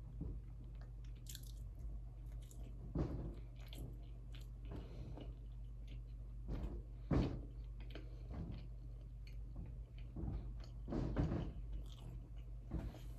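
Close-miked chewing and biting of food: wet mouth sounds, smacks and small crunches come irregularly over a steady low hum. A sharper click comes about seven seconds in.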